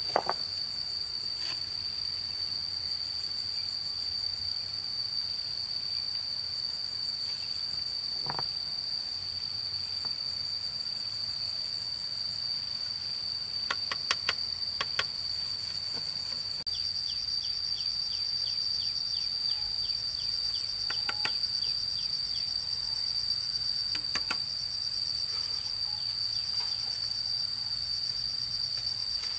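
Steady, high-pitched drone of insects singing, with a second insect joining a little over halfway through. A few sharp clicks of stones being knocked together as they are set in place.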